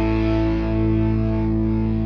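Background rock music: distorted electric guitar holding a sustained chord.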